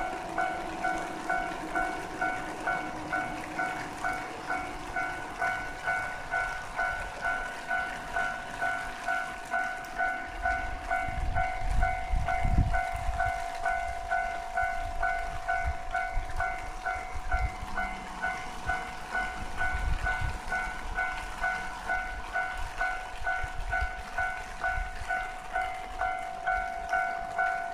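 Japanese railway level-crossing warning bell ringing in a steady ding-ding rhythm, about twice a second. A train rumbles over the crossing partway through, loudest a little before the middle and again later.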